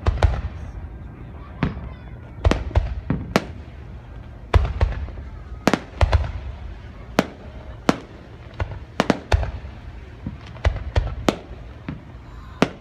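Aerial firework shells bursting overhead, about twenty sharp bangs at an irregular pace, some coming in quick pairs and clusters, each trailing off in a short low rumble.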